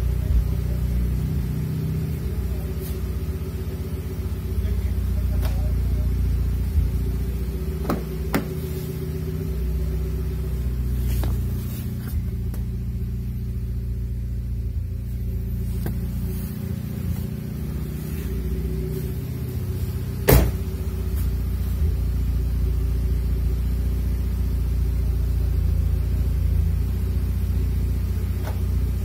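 Mitsubishi Lancer Evolution X's turbocharged 2.0-litre four-cylinder idling steadily after a remote start. A few sharp clicks come through, and one louder knock about two-thirds of the way in.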